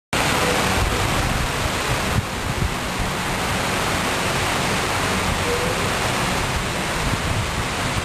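Water pouring down a tiered stone cascade fountain, a steady rush of splashing water.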